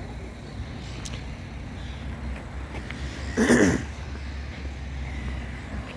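Steady low rumble of town traffic, broken about three and a half seconds in by one brief, loud burst of noise.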